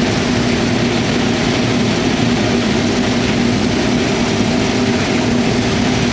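Corn shelling machinery running steadily: a loud, even rush of noise over a steady low engine hum.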